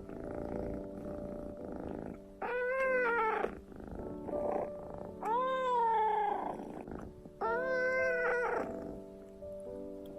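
Kitten meowing three times, drawn-out calls with the middle one the longest, over a steady cat purr.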